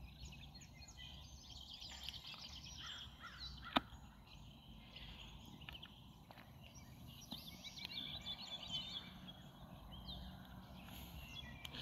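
Faint outdoor ambience of small birds chirping and trilling, with a sharp knock about four seconds in and another near the end, which are taken for branches banging in the trees.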